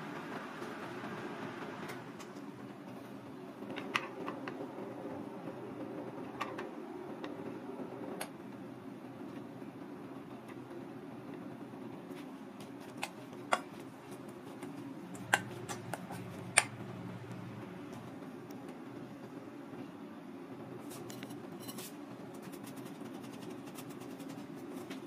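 Steady low background hum with occasional sharp clinks of a metal spoon and knife against a stainless steel mixing bowl and cutting board while a crab-meat filling is stirred. A quick run of faint ticks comes near the end.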